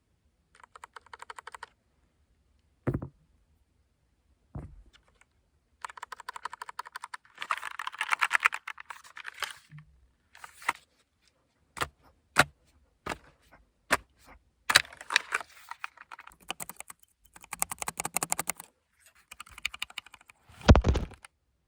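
Typing on a Keychron K9 Pro low-profile mechanical keyboard: quick runs of key clicks in several bursts, with single key presses between them. A few deeper thuds come through, the loudest near the end.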